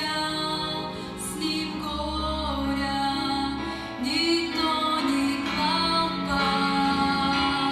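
Music: a song, with a voice singing over instrumental accompaniment.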